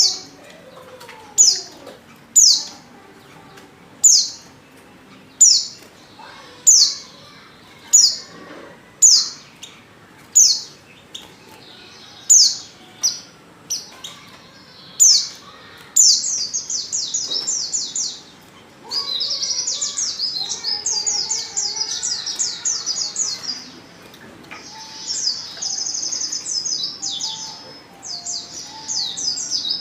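White-eye (pleci) calls. First come single sharp chirps, each sliding downward, about one a second; about halfway through they give way to a fast, continuous high twittering song, broken twice by short pauses. The calls are a female white-eye lure recording, played to set male white-eyes singing.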